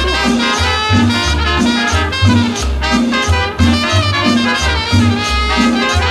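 Instrumental passage of a cumbia band recording, with brass horns playing over a bass line that pulses about twice a second and no singing.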